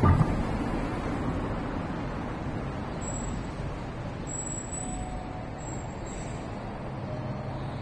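Steady road traffic noise, with a short low thump right at the start.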